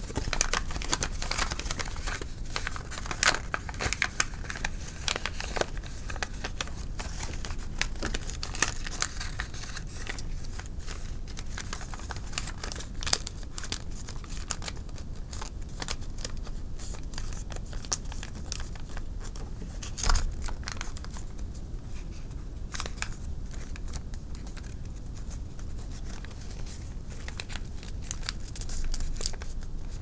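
Origami paper being folded and creased by hand: irregular crinkling and sharp crackles of the paper, busiest in the first half, with one louder snap about two-thirds of the way through.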